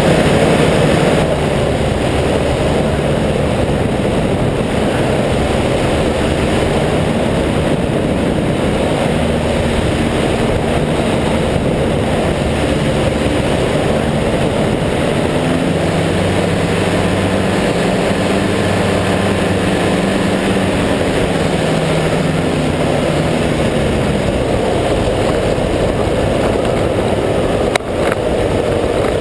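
Kawasaki engine and pusher propeller of an ultralight powered hang-glider trike running at reduced power on a landing approach, with air rushing past the microphone. The engine note shifts up and down in pitch, and a brief knock is heard near the end as the trike rolls on the grass.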